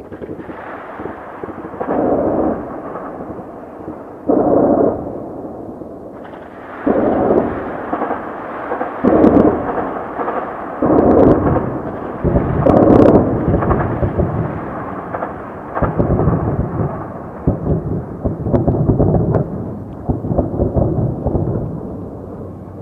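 Heavy gunfire and explosions echoing across a city at a distance: a run of loud bursts a couple of seconds apart, then denser, overlapping firing through the second half.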